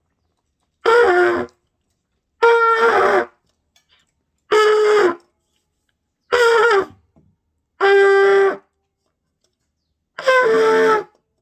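Trumpet blown by a beginner: six short separate notes, each under a second, several sagging in pitch as they end. It is the unsteady tone of a learner whose lips do not seal tightly on the mouthpiece, so the sound leaks.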